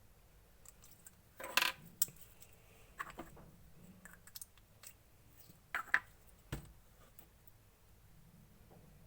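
Scattered clinks and clicks of small hard objects knocking against a container while clear slime is mixed, about half a dozen in all, loudest around two seconds in and again around six seconds.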